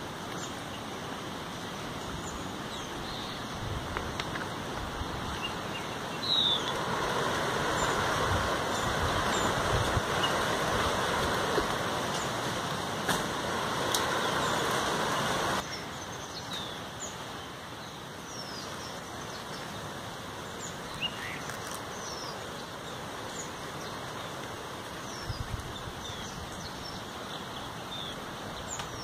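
Outdoor woodland ambience with birds chirping here and there. Partway in, a louder, even rushing noise joins for about nine seconds and cuts off abruptly.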